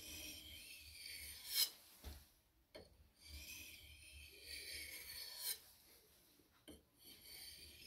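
Steel knife blade sharpened on a whetstone: two long scraping strokes across the stone, each ending in a sharper scrape, with light clicks between them and a third stroke starting near the end.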